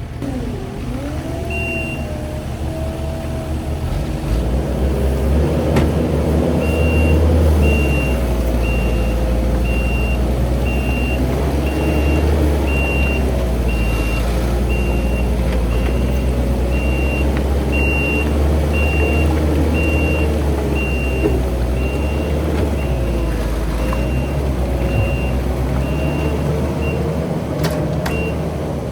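Skid steer engine running hard, its pitch rising and falling as it is worked, while a reversing alarm beeps: once early on, then steadily about one and a half times a second from several seconds in until near the end.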